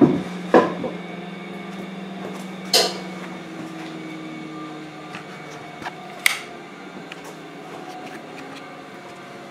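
Pine boards being handled on a table saw's top: a knock about half a second in, a louder knock near three seconds and a sharp click after six, over a steady low hum.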